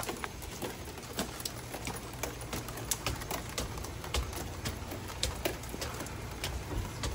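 Footsteps climbing wooden outdoor stairs: a steady run of sharp taps, about two to three a second, over a low hum.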